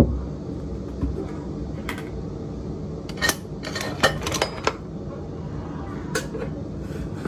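A ceramic mug and a canister being handled on a kitchen counter: a scatter of light clinks and knocks, with several in quick succession around the middle.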